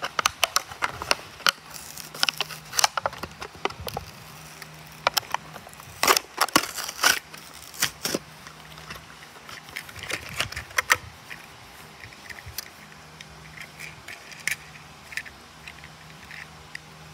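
Clear plastic blister packaging of a toy car being pried apart and handled: sharp plastic crackles and clicks, thick through the first eleven seconds or so, then only a few scattered clicks.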